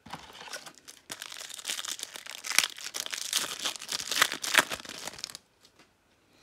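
Wrapper of a Topps Turbo Attax trading card pack being crinkled and torn open: dense crackling with a few sharp louder crackles, stopping about five seconds in.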